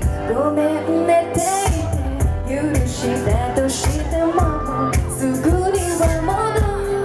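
A woman singing live into a microphone over a pop backing track with a steady beat, her voice holding and gliding between sustained notes.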